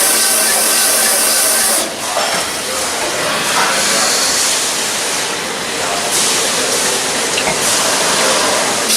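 Loud steady hissing, like a jet of air or spray, over a machine hum that drops away about two seconds in.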